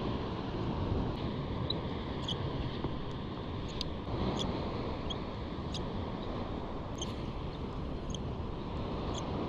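Steady wind and water noise at sea, with faint short high-pitched squeaks at irregular intervals, about one or two a second.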